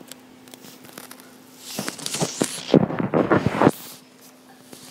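Handling noise on a phone's microphone: fingers rubbing and knocking against the phone make crackling, scraping clicks. It rises into a loud burst of rubbing from about two seconds in that stops abruptly near four seconds.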